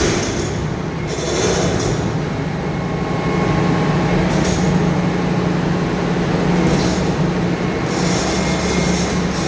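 Large Doosan 500LC-V crawler excavator's diesel engine running steadily under load, with bursts of high metallic squealing and grinding from its steel tracks and undercarriage as it is driven off for unloading.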